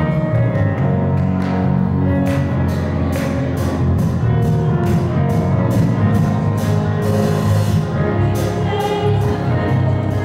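Gospel praise-and-worship music from a church band: a drum kit keeping a steady beat under sustained instrumental chords, with voices singing.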